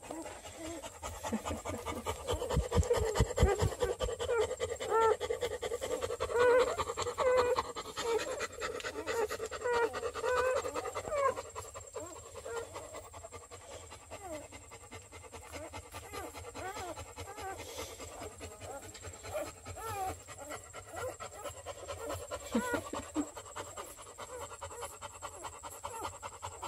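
Bluetick coonhound mother panting steadily while her newborn puppies nurse, with many small squeaks and grunts from the pups that thin out about halfway through.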